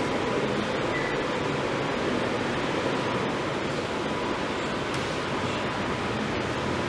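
Steady, even rushing room noise in a classroom, with no distinct events.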